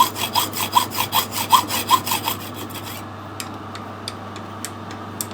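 Hand sawing: even back-and-forth saw strokes, about two and a half a second, that stop about two and a half seconds in. After that only a steady low hum with a few faint ticks remains.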